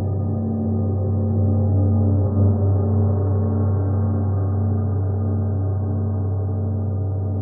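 Large hanging gongs ringing on after being struck: a steady, deep, humming tone with many overtones and an even waver of about two pulses a second.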